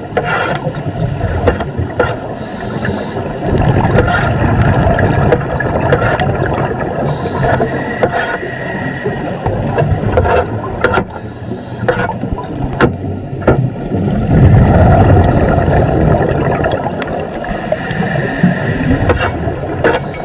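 Underwater recording of a scuba diver scraping marine growth off a metal grate with a long-handled scraper: irregular scraping strokes and sharp clicks of the tool on the bars. Twice, a longer, louder rush of the diver's exhaled regulator bubbles.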